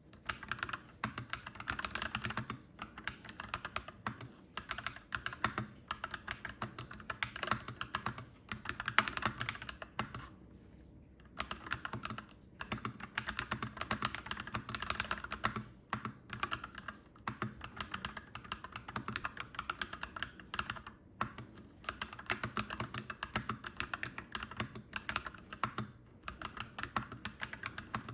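Clacky mechanical keyboard being typed on in fast, continuous runs of keystrokes, with a short pause about ten seconds in.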